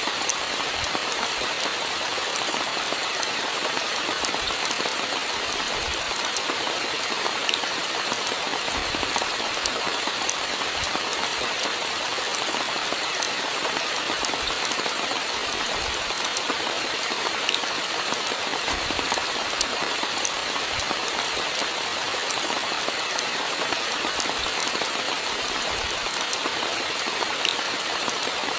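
Steady rain: a dense, even hiss of falling rain with many small drop ticks and an occasional low thud.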